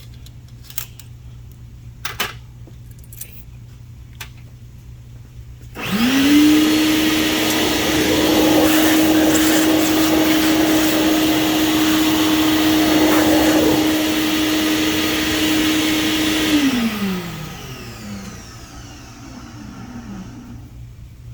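A few light tool clicks, then a high-speed motor with a loud rushing air noise spins up about six seconds in. It runs steadily for about ten seconds, then winds down.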